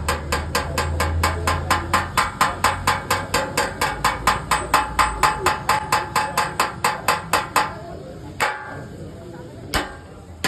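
Hammer tapping rapidly on car body sheet metal, about four to five blows a second, working out a dent. Near the end the fast run stops and a few single, slower blows follow.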